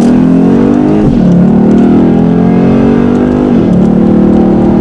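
Lexus IS F's 5.0-litre V8 accelerating hard through the gears. The engine note climbs steadily, drops sharply at an upshift about a second in and again after about three and a half seconds, then climbs again.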